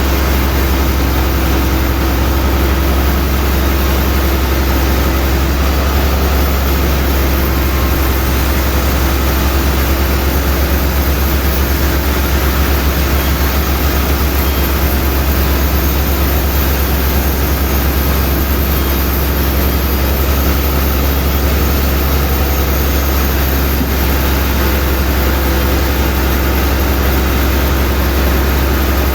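Sawmill machinery running steadily: a loud, even low hum under a broad noisy rush that does not change.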